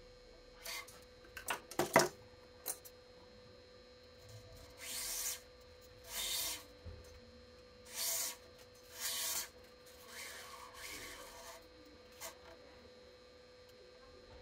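Badminton string being drawn by hand through the racket frame's grommets, a rasping swish with each pull: four short pulls, then a longer, softer one. Before them come a few clicks and one sharp knock, about two seconds in, which is the loudest sound.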